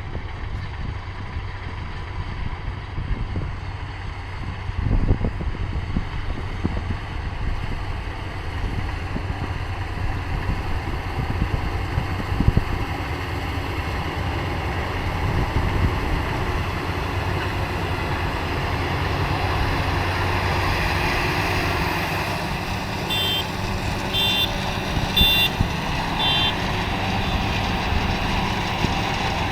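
Engine of harvest machinery running steadily with a heavy low rumble. Near the end, four short electronic beeps sound about a second apart.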